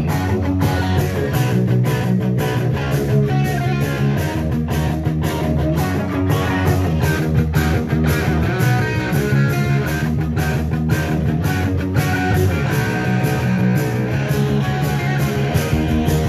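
Live heavy metal band playing an instrumental passage: distorted electric guitars and bass over a steady drum beat, loud throughout.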